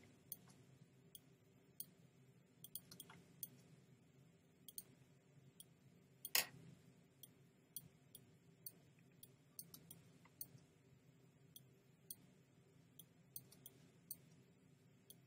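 Faint, irregular clicks of a computer mouse, about one or two a second, as anchor points are placed one after another with Photoshop's pen tool along an outline. One click about six seconds in is louder than the rest, over a faint steady room hum.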